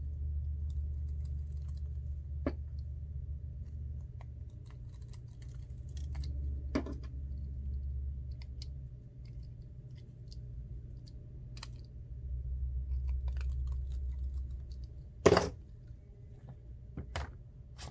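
Small clicks and taps of tools and tiny parts being handled while reassembling an iPhone 8 Plus, over a low rumble that comes and goes. A louder knock about fifteen seconds in, and a smaller one shortly after.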